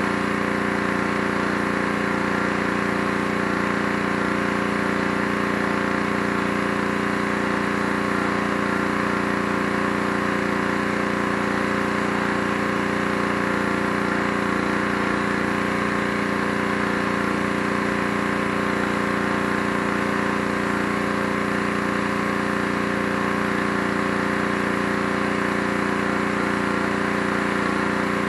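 Pressure washer running steadily while the deck is sprayed, an even, unbroken engine-like hum.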